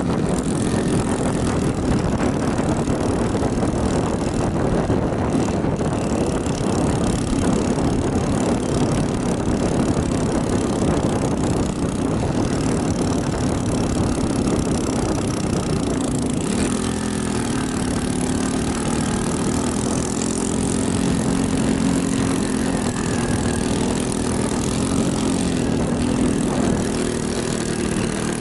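Motor vehicle engine running steadily while driving, with rushing wind and road noise; the engine pitch shifts slightly about two-thirds of the way in.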